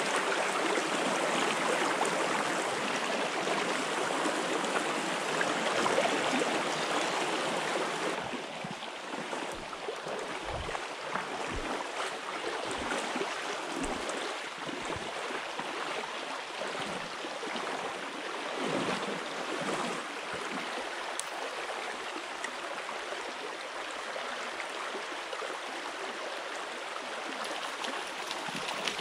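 Shallow stream running over stones, a steady rush of water that eases after about eight seconds, with a few low bumps in the middle.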